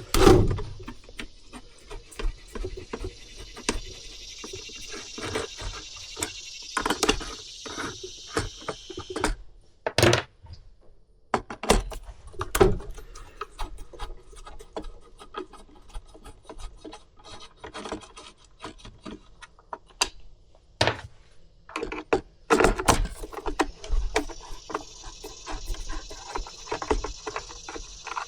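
Plastic parts of a Stihl BG 65C leaf blower's housing and hand tools being handled during disassembly: irregular clicks, knocks and rubbing, with a few sharper knocks.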